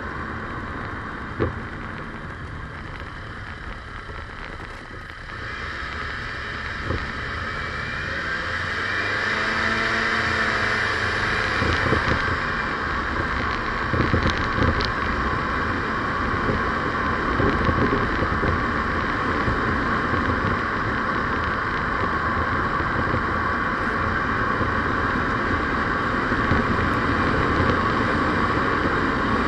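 Steady vehicle road and engine noise heard from a moving vehicle. It grows louder and rises in pitch about a quarter of the way in as the vehicle picks up speed, then holds steady, with a few brief knocks.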